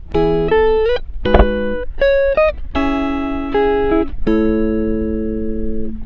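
Background music: a guitar plucking a series of chords and single notes, each ringing out for up to a second or so, with a few notes sliding up or down in pitch.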